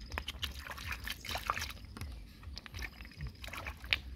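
Hands groping and sloshing through shallow, muddy stream water and over the bed, feeling for freshwater snails. Small, irregular splashes and clicks.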